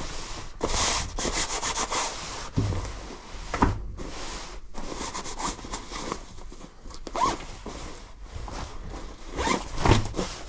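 Gloved hands handling a black ripstop tactical jacket: the fabric rustles and rubs, with what sounds like a zipper drawn in quick strokes in the first couple of seconds, and a few thumps as the jacket is moved.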